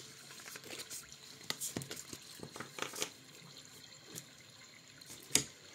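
Tarot cards handled and shuffled by hand: quiet, irregular flicks and clicks, with one sharper tap about five seconds in.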